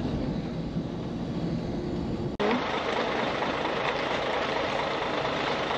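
A road vehicle driving, a steady rumble of engine and road noise. It is broken by a sudden cut about two and a half seconds in, after which the noise is brighter and hissier.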